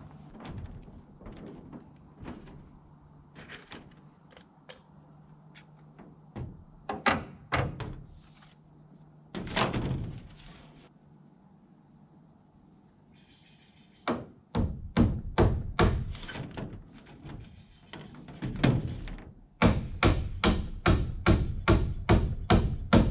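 Hammer tacking nails through a flexible rain-gutter piece fitted as flashing along a roof edge. Scattered knocks and handling at first, then from about halfway a run of steady hammer blows, two to three a second, coming faster and louder near the end.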